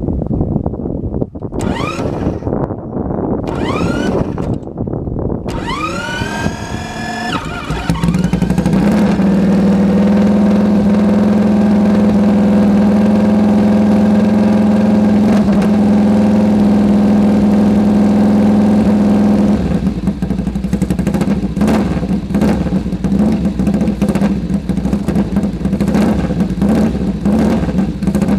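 Freshly rebuilt sidecar motorcycle engine on its first run: it is blipped up in pitch several times, then held at steady high revs for about eleven seconds, and drops back to a lower, uneven running near the end.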